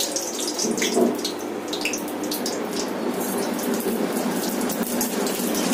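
Dried red chillies and panch phoron (five-spice seeds) sizzling steadily in hot mustard oil in a kadai, with a few small crackles, as the tempering is made.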